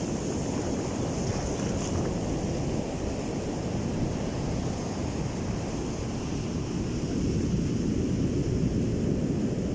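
Heavy surf breaking and washing on a sandy beach, with wind on the microphone: a steady, low-pitched wash that grows a little louder near the end.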